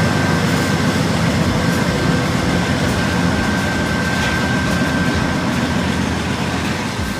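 Train rolling past at close range, a steady rumble of wheels on rail with a thin, steady high wheel squeal, easing off a little near the end.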